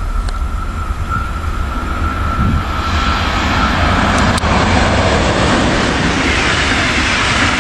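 DB class 182 Taurus electric locomotive with a rake of regional coaches approaching and passing at speed. A steady high whine during the approach gives way, about three seconds in, to a building rush of wheels on rail as the locomotive and coaches roll by, with a sharp click partway through the pass.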